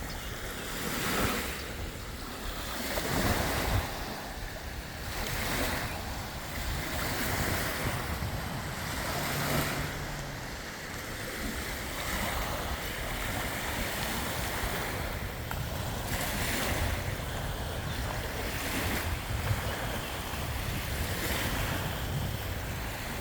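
Freshwater lake waves lapping and washing onto the shore in repeated swells every second or two, with wind rumbling on the microphone.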